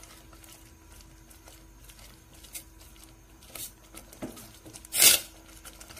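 Wooden spoon stirring soaked sago pearls in water in a stainless steel pot: soft scraping with a few knocks of the spoon against the pot, the loudest about five seconds in.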